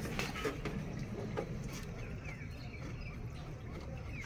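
Faint clicks and light taps of hands and tools working on a diesel engine's fuel injector lines, over a steady low hum, with a few faint bird chirps.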